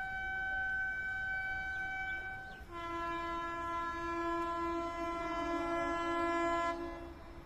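Train horn sounding twice: a single high note held for about two and a half seconds, then a lower, fuller multi-note blast lasting about four seconds that stops shortly before the end.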